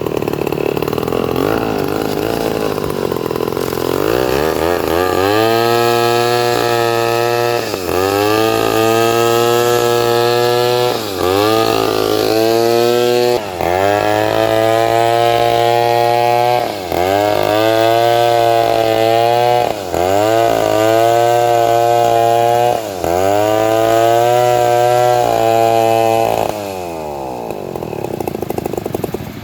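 Chainsaw running at full throttle, cutting through a large teak log. Its engine note dips sharply in pitch and picks back up every few seconds. Near the end it drops back to idle.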